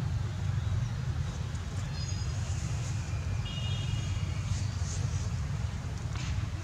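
Steady low rumble of outdoor background noise, with a few faint high chirps here and there and a brief click near the end.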